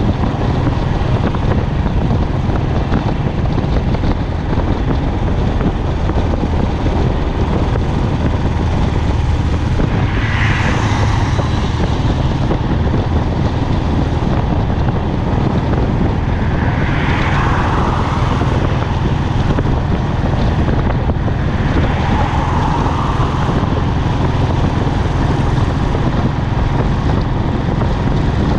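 Royal Enfield Classic's single-cylinder engine running steadily through its exhaust at highway cruising speed, heard from the handlebars along with wind and road noise. Three brief swells of hiss rise over it partway through.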